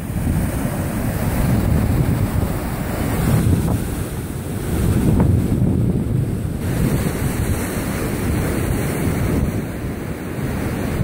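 Wind buffeting the microphone over the steady wash of surf breaking on a sandy beach, rising and falling in gusts.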